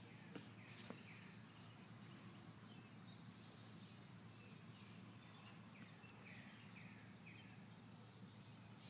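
Near silence: a faint steady background hum with a few faint, short chirps falling in pitch from distant birds, and a couple of small clicks of the phone being handled in the first second.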